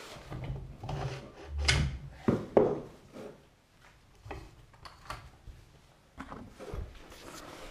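Irregular knocks and clunks from hands working on a pit bike's rear wheel and disc brake, loudest in a cluster about two seconds in, then fainter scattered taps.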